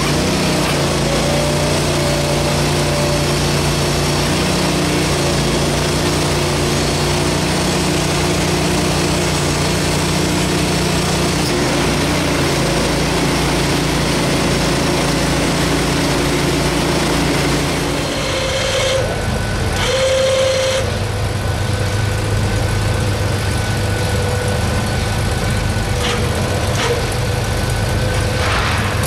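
Portable band sawmill's engine running steadily, its note changing abruptly about two-thirds of the way through.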